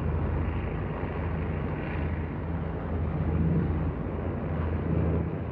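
Multi-engine propeller aircraft droning in flight: a steady low engine hum under an even rushing noise.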